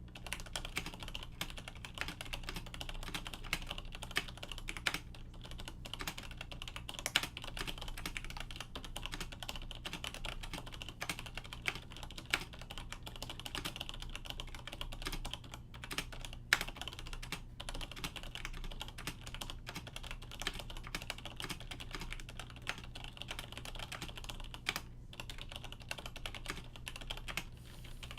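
Continuous typing on a Siemens Nixdorf Nixie keyboard with stock Nixie switches, a steel plate and stock ABS keycaps: a dense run of key clacks with a few louder strokes and a brief pause about three quarters of the way through. A faint steady low hum runs underneath.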